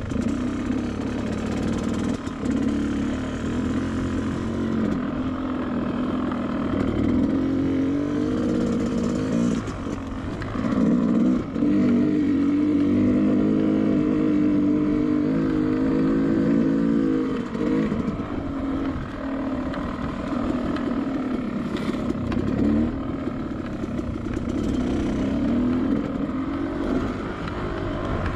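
Two-stroke dirt bike engine running under way, its revs rising and falling as the throttle opens and closes, loudest around the middle.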